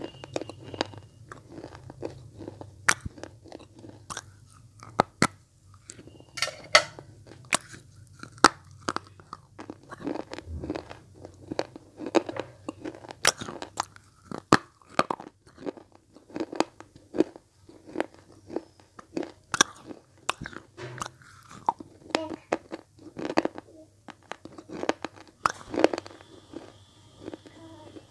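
Red slate blocks being bitten and chewed right at an earphone microphone held to the lips: irregular sharp crunches, several a second, as the hard slate cracks between the teeth.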